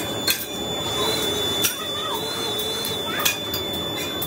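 Coal forge fire with its air blast running steadily, and three sharp metal clicks as an iron rod is worked in the fire. A thin steady high whine runs underneath.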